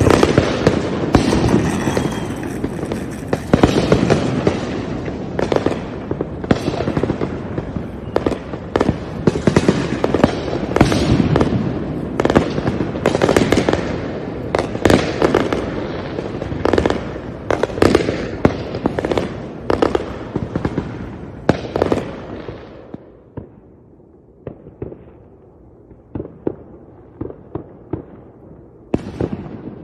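Fireworks going off in a dense, continuous barrage of bangs and crackling that thins out about three quarters of the way through to scattered, quieter pops, with a few sharper bangs near the end.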